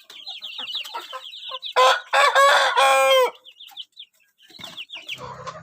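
A rooster crows once about two seconds in, a loud cock-a-doodle-doo lasting about a second and a half. Rapid high chirping comes before and after it.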